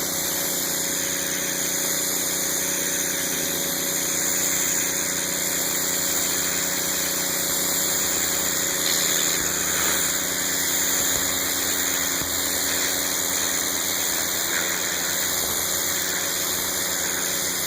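Gas pressure washer's 9 hp Honda GX single-cylinder engine running steadily under load, driving the pump, with the hiss of a high-pressure turbo-nozzle spray on concrete.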